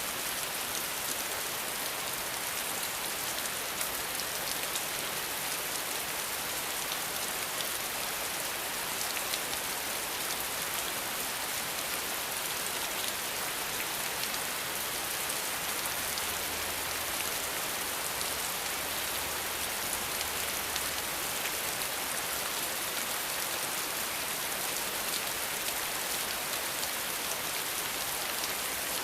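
Steady rain falling, an even hiss with many fine drop patters on surfaces.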